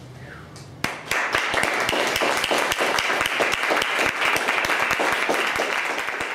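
Audience applauding. The clapping breaks out suddenly about a second in, after a hushed room, and carries on dense and steady.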